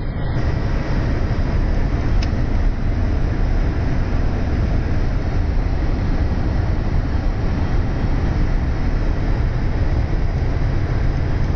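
MAN F2000 truck cruising, heard from inside the cab: a steady, loud low drone of diesel engine and road noise.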